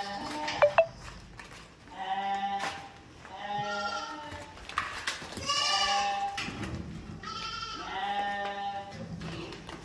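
Goats bleating: four separate bleats a couple of seconds apart, each lasting under a second. Two sharp knocks sound just under a second in.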